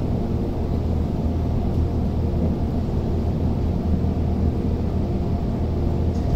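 Tokyo Metro 05 series subway train running, heard from inside the passenger car: a steady rumble of wheels on the rails with a faint even hum over it.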